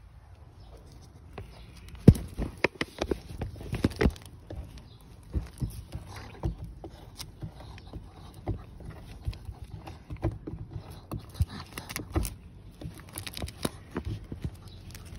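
Dachshunds digging and nosing under a wooden step, their paws scraping soil and knocking against the boards in irregular scratches and knocks.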